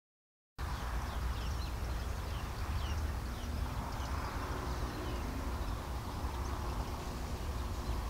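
Outdoor ambience that cuts in about half a second in: many short, high, falling bird chirps over a steady low rumble.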